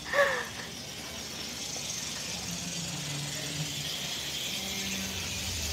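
Steady high chorus of buzzing, chirring insect sounds played over outdoor ambient speakers, recorded bug sounds rather than live insects.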